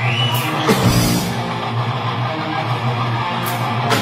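Heavy metal band playing live: electric guitars and bass over drums, with sharp crash hits about half a second in and again near the end.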